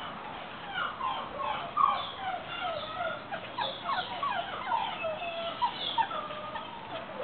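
Six-week-old greyhound puppies whimpering and squealing, many short, high cries overlapping one another, starting about a second in.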